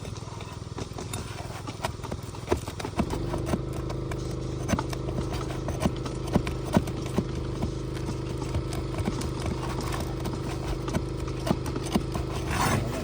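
Scattered sharp taps, clicks and scrapes of a pry bar and roofing hammer working under asphalt shingles to free and pull roofing nails. A steady engine hum comes in about three seconds in.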